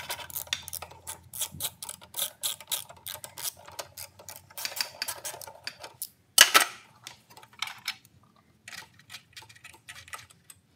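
Socket ratchet clicking in a quick run as a 10 mm bolt is backed out of a Briggs & Stratton mower engine's cover, with a loud knock about six seconds in and a few scattered clicks after.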